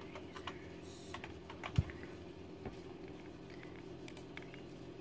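Typing on a laptop keyboard: scattered key clicks, with one sharper knock just under two seconds in.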